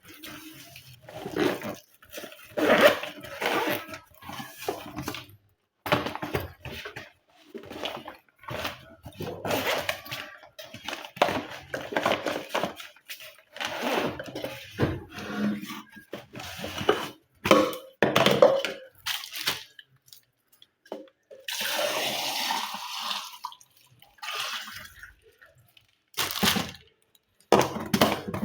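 Water running and splashing in short, irregular spurts, with a longer steady pour of about two seconds past the middle.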